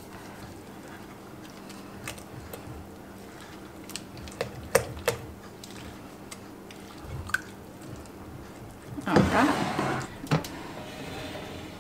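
Silicone spatula stirring a thick, creamy soup-and-rice mixture in a glass bowl: soft squishing and scraping with a few light taps against the glass. About nine seconds in comes a louder scraping shuffle as the bowl is moved across the counter.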